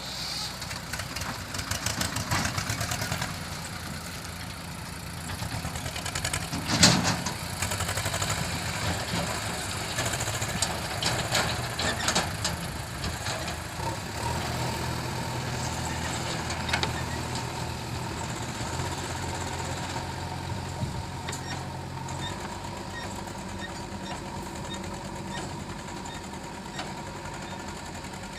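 JCB 3DX backhoe loader's diesel engine running steadily, with scattered metallic clanks and knocks from the working machine: one loud bang about seven seconds in and a cluster of knocks a few seconds later. The engine note firms up for a stretch in the second half.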